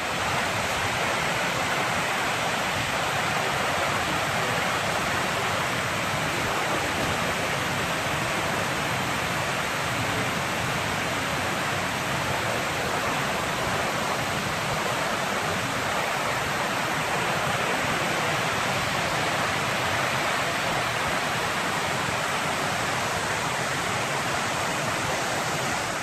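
Stream water pouring over a low, sloping concrete weir in a shallow sheet: a steady, even rush of water.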